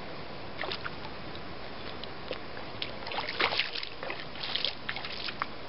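Water splashing in irregular bursts at the river surface as a hooked fish thrashes while being drawn toward the bank. The splashing is loudest about three seconds in, over a steady hiss.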